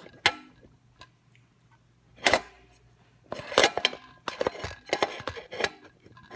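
Hands handling objects: a sharp knock, a louder knock about two seconds in, then a quick run of taps and rattles in the second half.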